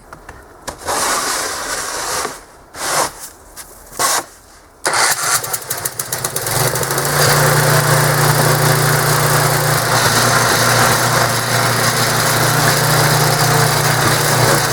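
Craftsman 8.5 hp snow thrower's engine being started: a few short cranking bursts, then it catches about five seconds in and settles into steady running.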